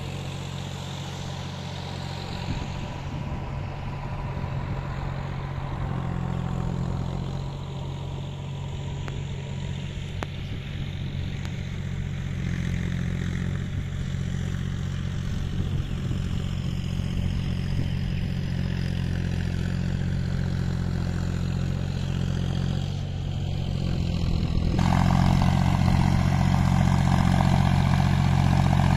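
Tractor engine running steadily at a low pitch while plowing a flooded paddy field, turning louder about 25 seconds in.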